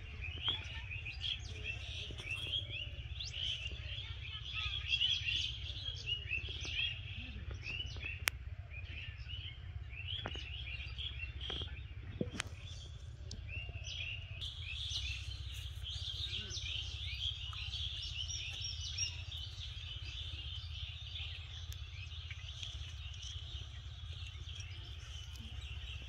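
Many small birds chirping continuously in quick, short notes, over a low steady rumble, with a few sharp clicks.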